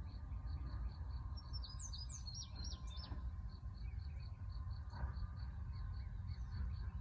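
Outdoor pond-side ambience: an insect chirps steadily at about three or four pulses a second, and a bird gives a short burst of quick high chirps about one and a half to three seconds in, over a low rumble.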